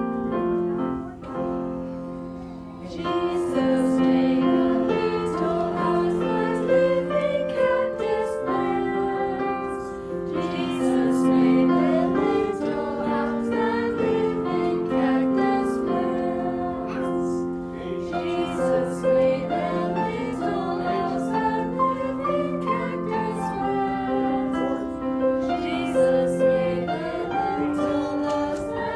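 Piano accompaniment playing a simple children's song, with some singing along.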